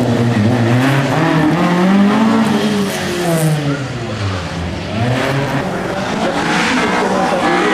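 Rally car engines at full throttle. A Ford Escort Mk2 revs hard and drops back as it pulls away and fades about four seconds in. A second rally car, a Toyota Corolla, then comes in with its engine note climbing as it approaches.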